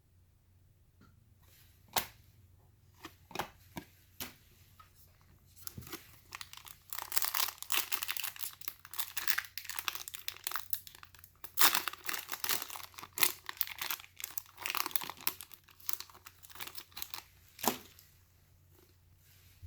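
Foil wrapper of a trading-card pack being torn open and crinkled, a dense crackling that follows a few scattered light clicks and taps and ends with one sharp click.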